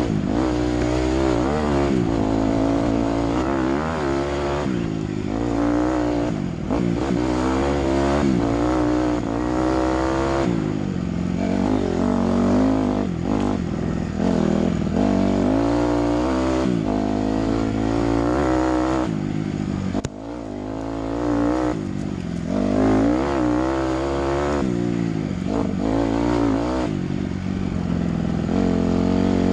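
Dirt bike engine ridden hard on a trail, revving up and down constantly as the throttle is opened and shut. The engine note drops briefly about two-thirds of the way through, then picks up again.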